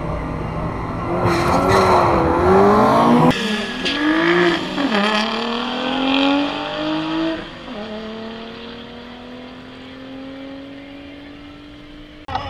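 Drag-race cars launching from the start line: engines rev hard, then one car accelerates away down the strip, its engine pitch climbing and dropping at two gear changes before a long pull that fades as it gets farther away.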